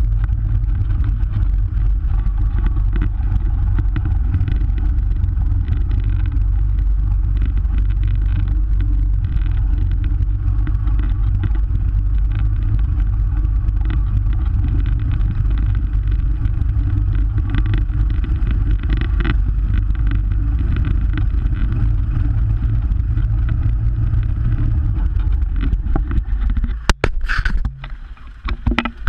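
Utility vehicle's engine running steadily as it drives over snow, a loud low drone. Near the end there are a few sharp knocks, and the drone drops away abruptly.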